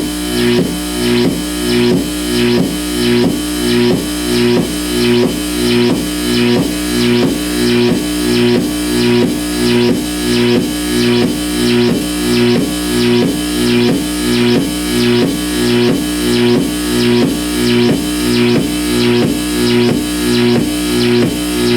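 Amplified electrical interference from dimmed compact fluorescent bulbs, picked up by exposed guitar cables, with no effects applied. It forms a loud, steady pulsing buzz of about two pulses a second, with a few held tones and a low hum underneath. The pulsing comes from the bulbs' inability to dim properly, with their coils flickering.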